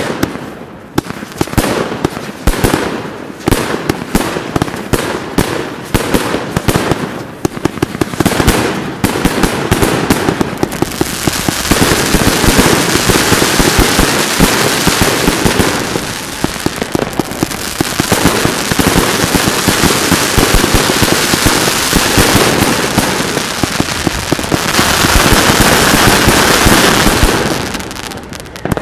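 Fireworks going off: rapid separate bangs for about the first ten seconds, then a dense, continuous crackle of reports that tapers off near the end.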